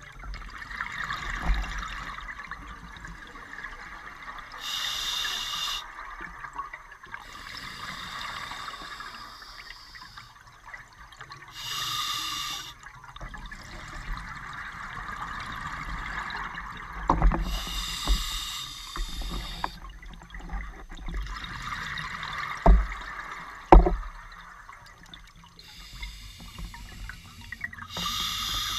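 Scuba diver breathing underwater through a regulator: a hiss of inhaling lasting a few seconds, then a short burst of exhaust bubbles, about every six seconds. A few sharp knocks of equipment stand out, the loudest two about two thirds of the way through.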